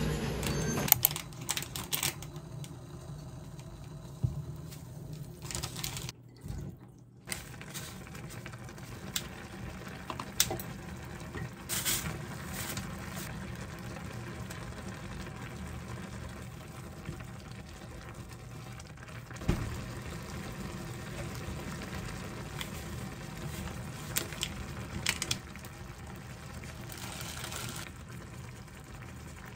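A saucepan of ramen and rice cakes bubbling on an induction cooktop, with scattered clicks and clinks of a spoon and packets as ingredients go in. There is a brief break about six seconds in.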